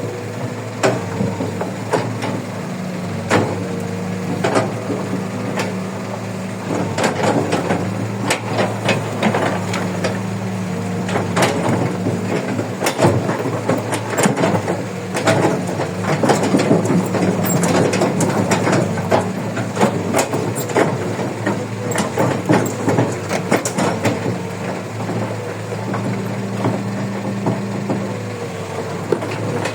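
Kobe 135 excavator's diesel engine running steadily, with many sharp clanks and knocks of the machine working, thickest through the middle of the stretch.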